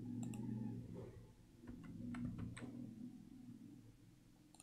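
A few faint, scattered clicks of a computer mouse over a low steady hum.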